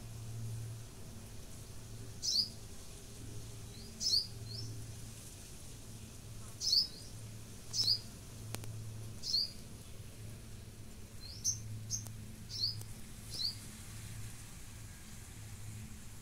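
A small bird chirping: short, high, downward-sliding notes, often in quick pairs, repeated every second or two. A faint low hum comes and goes underneath.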